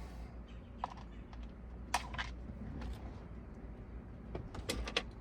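Scattered light clicks and taps of small plastic parts being handled and pushed out of a removed car steering wheel, about seven or eight irregular knocks with a few close together near the end.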